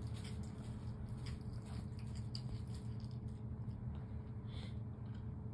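A black cat chewing raw meat off a plastic sheet, heard as faint soft clicks and crinkles over a steady low background hum.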